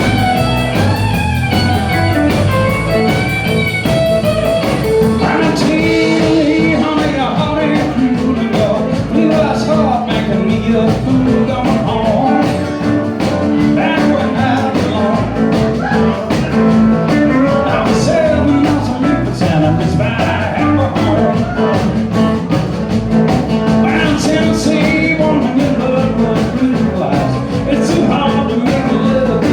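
Live country band playing loudly, led by electric guitar over bass and drums.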